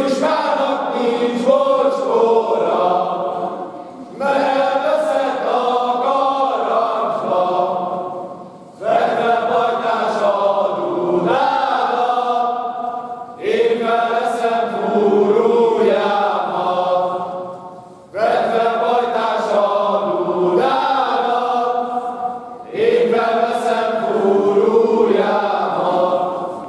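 A group of men singing a Hungarian Christmas folk carol without accompaniment, in phrases of about four to five seconds with a short pause for breath between each.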